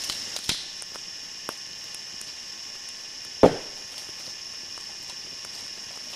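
A blade chopping into a rotten log to break out punk wood: a few light knocks near the start, then one loud, sharp chop about three and a half seconds in.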